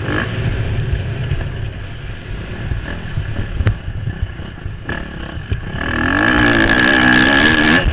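Motocross bike engine heard through a helmet camera with heavy wind rumble: throttle mostly off through a corner, then opened about six seconds in, the engine turning loud at high revs with its pitch wavering as the bike accelerates out. A few knocks from the bike hitting bumps.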